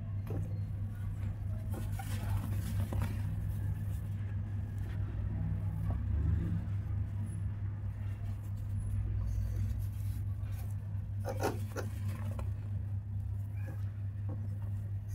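Hands squeezing and crumbling dry cement powder and lumps: soft, scattered crunches and powdery rustles, heaviest about two to three seconds in and again near eleven seconds. A steady low hum runs underneath and is the loudest thing.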